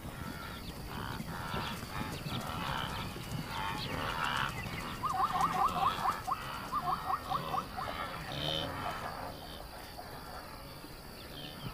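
Wild animals calling in open grassland at night, including a quick run of about ten short, repeated calls between about five and seven and a half seconds in.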